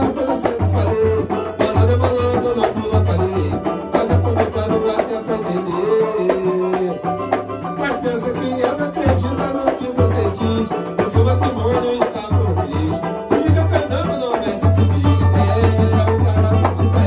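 A small acoustic samba group playing: guitar, cavaquinho and samba banjo strumming over pandeiro and a hand drum. The low drum beats in a steady rhythm that fills out near the end.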